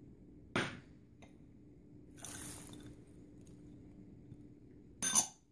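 Quiet kitchen handling while peas are tipped into a baking dish of marinated potato slices: a sharp knock about half a second in, a short soft pour around two seconds in, and another sharp knock near the end, over a faint steady hum.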